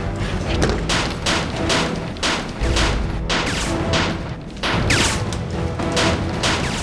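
Action soundtrack music under a run of sharp gunshots, about two a second.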